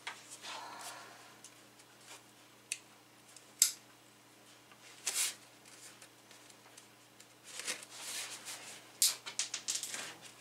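Packing tape on a cardboard shipping box being picked at and cut open by hand: scattered short scratches and scrapes on the cardboard, with a quick flurry of rasps near the end.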